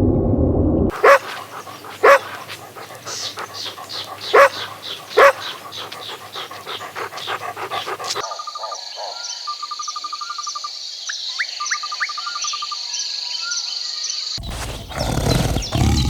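Dog barking, with four loud single barks over the first few seconds. The dog clip then cuts to a quieter stretch with a steady high-pitched tone and short repeated trills. Near the end a louder, lower sound begins.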